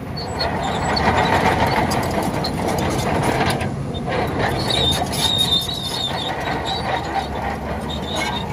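Shantui crawler bulldozer working: engine running under a clatter of steel tracks, with a brief high track squeal about five seconds in.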